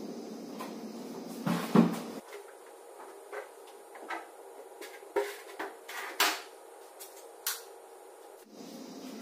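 Irregular knocks and clicks from a front-loading washing machine as laundry is pushed into the drum and the door is shut, the loudest knocks about a second and a half in.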